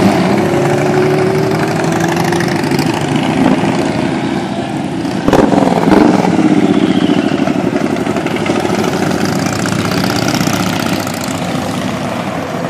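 Motorcycles riding past one after another, their engines running, with pitch rising and falling as each goes by. About five seconds in, one passes noticeably louder.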